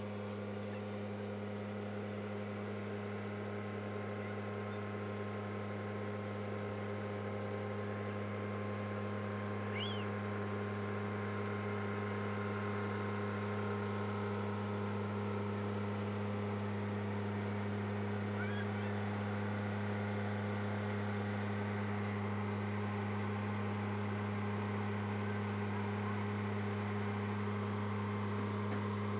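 Compact tractor's engine running at a steady speed, a constant low drone that slowly grows louder as the tractor drives up carrying a load on its front loader.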